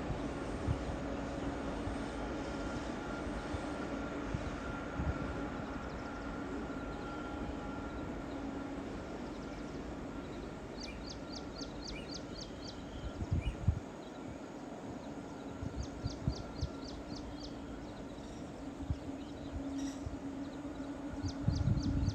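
Train sound effect: a steady locomotive hum with scattered low thumps. From about halfway, three short runs of rapid high chirps, about eight a second, come in over it.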